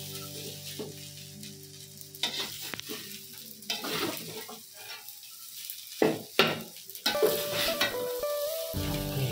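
Fried rice sizzling in a metal wok while a spatula stirs and scrapes it, with sharp scrapes and knocks of the spatula on the wok, the loudest a pair about six seconds in.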